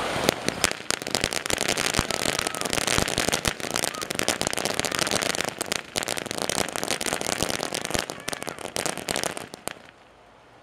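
Ground fountain firework crackling with a dense, rapid stream of sharp pops as it sprays sparks. It burns out near the end, and the crackle stops suddenly.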